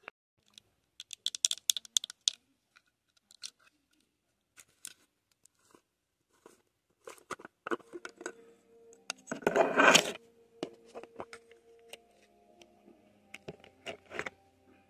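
Scattered clicks and taps of handling, and a white plastic tub's lid being worked off, with a loud scraping rasp about two-thirds of the way through.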